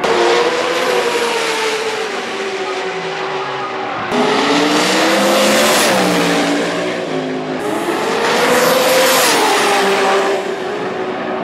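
Drag-race car engines at full throttle down the strip, the engine note rising and falling, in several runs cut together: the sound changes abruptly three times, with the loudest, harshest stretches in the middle and later part.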